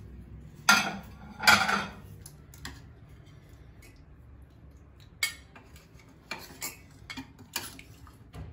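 Ceramic dinner plates clattering as they are taken down and set out, two loud clatters about a second in. Then a metal serving spoon clinks and scrapes against a steel cooking pot and the plate as curry is dished out, several lighter clinks.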